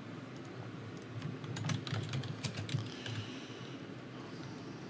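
Computer keyboard typing: a quick, irregular run of key clicks, busiest between about one and three seconds in, over low steady background noise.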